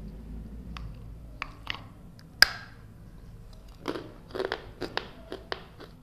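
Brittle gur papdi (jaggery honeycomb brittle) pieces cracking and clicking as they are handled and set into a small bowl. A few scattered sharp cracks come first, the loudest about two and a half seconds in, then a quick run of smaller crunches and taps near the end.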